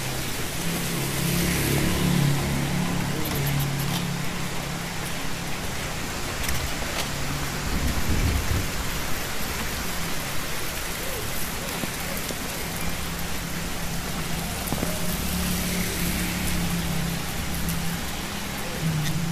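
Steady rain falling on an umbrella overhead and on a wet street, a constant hiss of drops. A low rumble comes and goes underneath and is loudest about eight seconds in.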